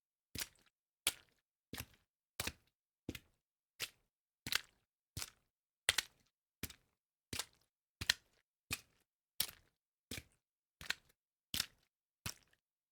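Footsteps in water, a sound-design sweetener layer for walking: short, even steps at a steady walking pace, about three every two seconds.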